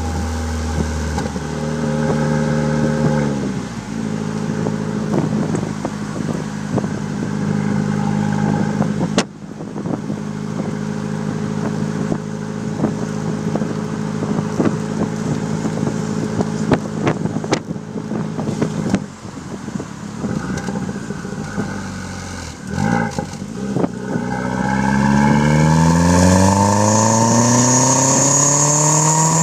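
2003 VW Passat 1.8T's turbocharged four-cylinder engine heard at the tailpipes through a free-flowing custom exhaust (2.5-inch downpipe, resonator delete, Magnaflow muffler, split tips). It drops from a light rev to a steady idle a few seconds in, then the revs climb slowly about two-thirds of the way through and are held high near the end.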